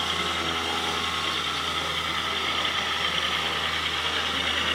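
Simulated diesel truck engine running steadily from a radio-controlled model semi truck's sound module as the truck drives slowly past.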